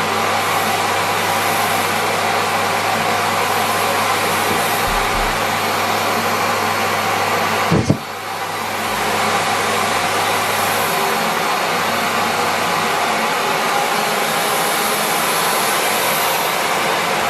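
Miele Complete C3 canister vacuum cleaner running steadily at full suction. About eight seconds in there is a single sharp clack, and the sound briefly drops before building back up over about a second.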